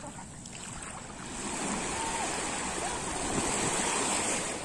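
Sea surf washing onto the shore: a wave swells up about a second in and eases off near the end.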